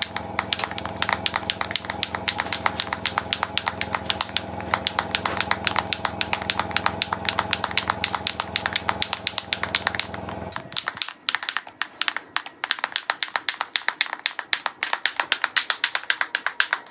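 A bottle of airbrush paint being shaken hard, rattling fast and evenly, about six shakes a second. Under it a machine's steady hum cuts out about eleven seconds in.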